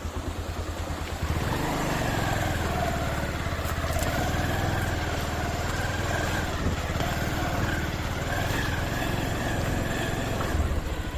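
Motorcycle engine idling, then pulling away and running steadily at low speed about a second in, easing back towards idle near the end.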